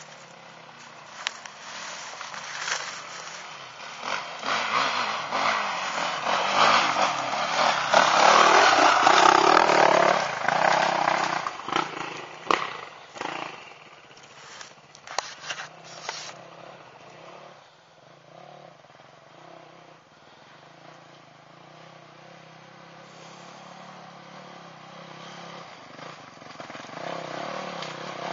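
Enduro dirt bike engine revving hard on a rocky trail, loudest about a third of the way through, then fading away. It rises again near the end as a bike comes up the trail. Scattered sharp knocks and clatter run through the loud part.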